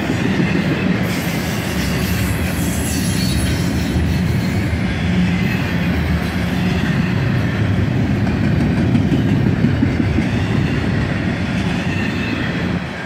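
Double-stack intermodal well cars of a CSX freight train rolling past at close range: a steady rumble of steel wheels on rail, with faint high wheel squeals in the first few seconds.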